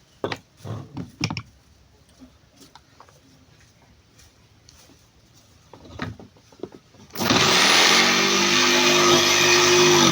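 A few knocks and handling clicks. About seven seconds in, an electric power tool is switched on: its motor spins up with a rising whine and then runs loud and steady.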